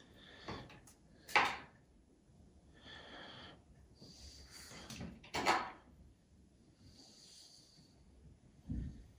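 Chef's knife slicing through a firm block of salted ricotta, a handful of strokes, each a short scrape that ends in a knock of the blade on the cutting board. Two knocks, about a second and a half in and about five and a half seconds in, are the loudest, and a dull thump comes near the end.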